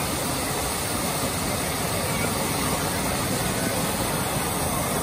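Tall fountain jet of water rushing and splashing steadily into its basin.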